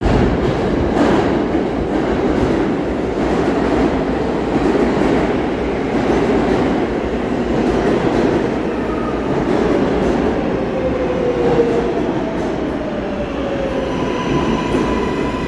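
R143 subway train pulling into an underground station and slowing, with loud wheel-on-rail rumble and clicks over the rail joints. A whine falls in pitch as it slows, and a steady high tone sets in near the end.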